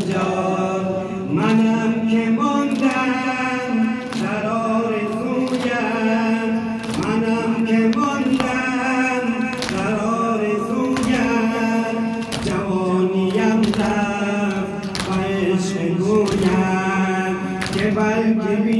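Men's voices chanting a Persian Shia noha (mourning lament) together, with rhythmic chest-beating (sineh-zani) slaps of open hands on chests about once a second.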